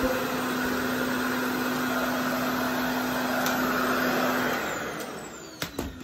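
RevAir reverse-air hair dryer running: a steady vacuum-like rush of air with a low hum as it sucks the hair into its wand. About five seconds in it is switched off and winds down, its pitch falling, followed by a few sharp knocks of handling.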